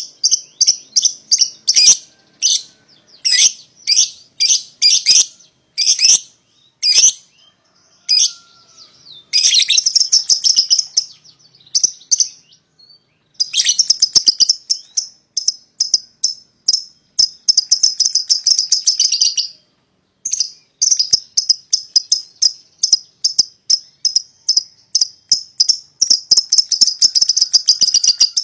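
A pair of young lovebirds calling with sharp, high chirps, one at a time over the first several seconds, then long runs of rapid chattering trills lasting several seconds each: the long 'ngekek' chatter that keepers play to spur other lovebirds into calling.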